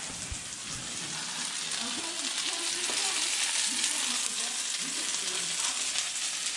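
Breaded cutlets frying in hot oil in a pan, a steady sizzle with fine crackling that grows louder about three seconds in.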